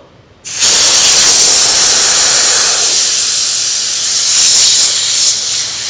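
Compressed air hissing out of the opened drain valve under the tank of a BAW AC30L 30-litre oil-free air compressor. The drain valve blows condensed water out of the tank. The hiss starts suddenly about half a second in and weakens slowly.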